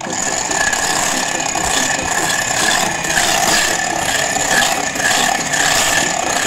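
Electric hand mixer running steadily on its lowest speed, its twin wire beaters whisking egg whites and lemon juice in a glass bowl. A constant motor whine with a high steady tone over the whirr of the beaters.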